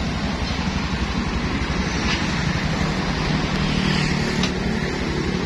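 An engine idling steadily with an even low throb, and a couple of faint clicks.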